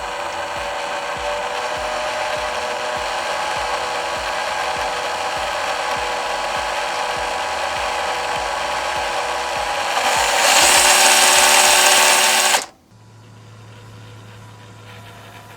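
MN128 RC Jeep's 390 electric motor and gear drivetrain running at speed with a steady whine, getting louder about ten seconds in, then cutting off suddenly near the end.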